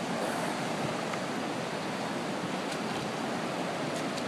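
Steady rush of ocean surf and shallow water washing over a rocky reef, with a few faint ticks.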